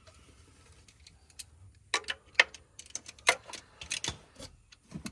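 Irregular sharp metallic clicks and clinks from hand tools and parts being handled during spark plug installation, starting about two seconds in, with a few louder knocks.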